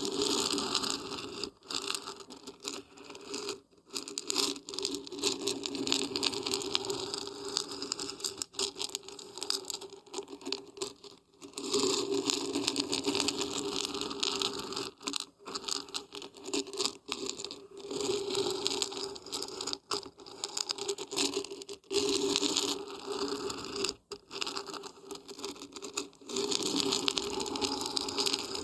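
Dried beans and dried barberries being shaken, a continuous rattling patter that swells and eases in waves, with short breaks every few seconds.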